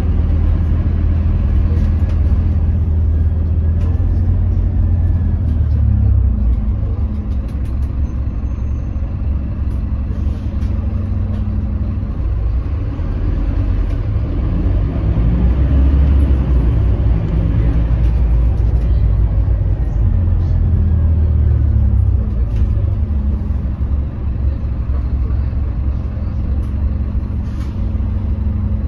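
Scania K310UB city bus's rear-mounted five-cylinder diesel engine heard from inside the passenger cabin while the bus drives: a deep drone that rises and falls several times as it pulls, changes gear and eases off. Road noise and a few light interior rattles run along with it.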